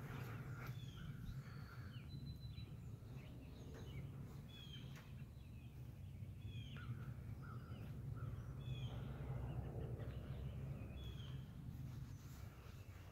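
Birds chirping and calling outdoors, many short calls scattered throughout, over a steady low rumble.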